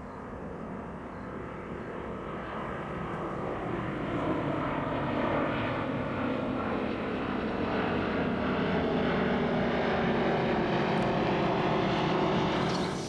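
Engine drone with several steady tones, growing louder, then cutting off abruptly near the end.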